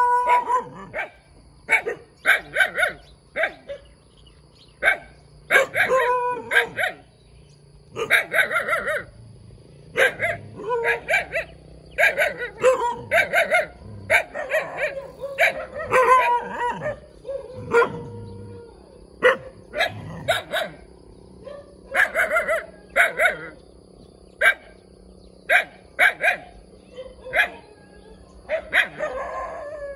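A puppy barking over and over, in single barks and quick runs of several, with short pauses between them.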